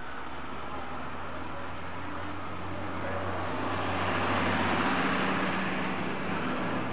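Bus engine running steadily at idle, with road noise swelling as a vehicle passes about four to five seconds in and then fading.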